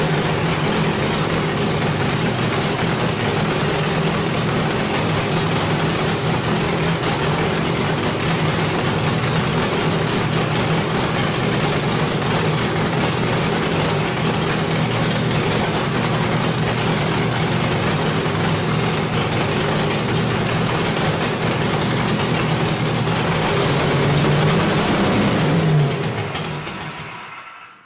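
Pulling truck's new racing engine running loud and steady at idle. About 25 seconds in the revs rise briefly, then the engine is shut off and winds down to a stop near the end.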